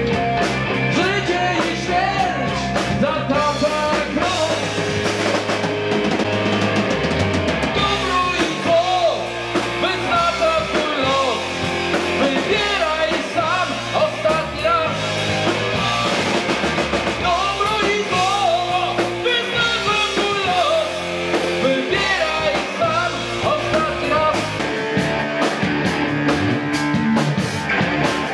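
Hard rock band playing live and loud, with electric guitars over a drum kit beat.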